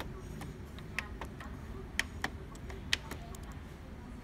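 Button presses on an HP laser multifunction printer's control panel: about five sharp plastic clicks, two quick pairs and then a single one, as the menu is stepped through, over a steady low hum.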